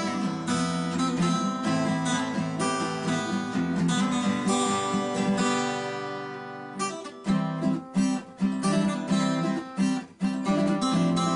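Background music on strummed acoustic guitar; about five seconds in, a chord is left ringing and fading, then sharp strummed strokes resume.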